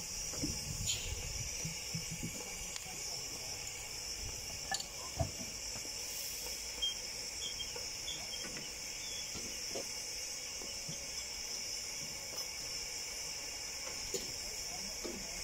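Steady high-pitched steam hiss from the standing RH&DR 15-inch-gauge 4-6-2 steam locomotive Green Goddess. A few faint knocks come around five seconds in, while the tender is being coupled to the carriage.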